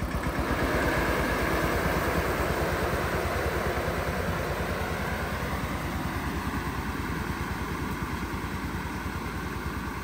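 Small tractor's engine running steadily as it tows an air-blast sprayer (blower) down a vineyard row, the sound fading gradually as it pulls away.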